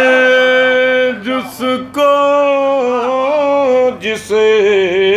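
A man's voice chanting a line of Urdu verse into a microphone in drawn-out sung notes (tarannum), not speaking it. Long held notes are broken by short pauses about a second and about four seconds in.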